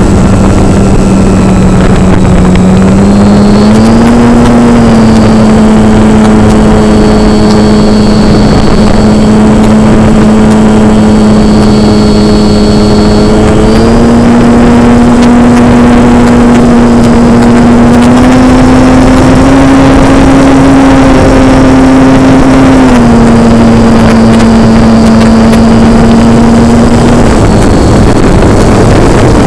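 RC model airplane's motor and propeller running in flight, a steady droning whine that steps up in pitch a few times with throttle changes and drops away near the end, over heavy wind rush on the onboard microphone.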